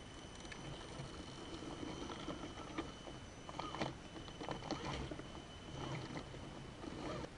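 Radio-controlled scale 6x6 truck crawling over rough ground: a faint, steady high whine from its electric drive, with scattered clicks and knocks from the tyres and chassis, busiest in the middle.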